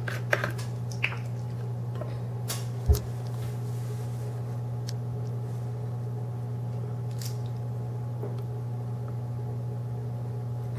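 Clicks and a sharp knock from handling a plastic vegetable-oil bottle and measuring spoon, the knock about three seconds in, over a steady low electrical hum.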